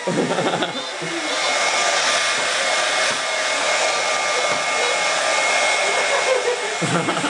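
Handheld hair dryer running steadily, a strong even rush of blown air with a thin steady whine in it.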